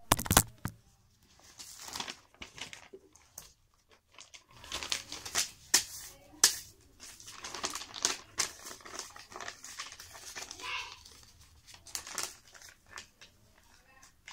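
A sheet of paper rustling and crinkling as it is handled and folded, in irregular crackles with short pauses between. A few sharp knocks come in the first half second.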